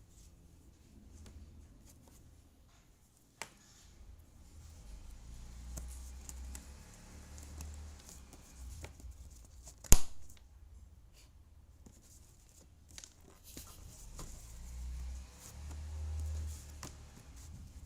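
Jigsaw puzzle pieces being handled and pressed into place: scattered light clicks and soft rustling, with one sharp knock about ten seconds in.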